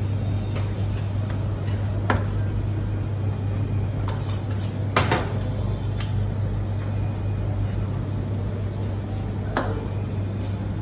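A few sharp clacks of a knife and meat on a plastic cutting board as beef is sliced into thin steaks, the loudest a double knock about five seconds in. A steady low hum runs underneath.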